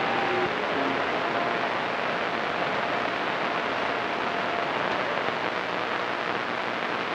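Open-squelch CB radio receiver on channel 28 giving a steady hiss of static and band noise between transmissions, with a faint whistling tone or two in the first second.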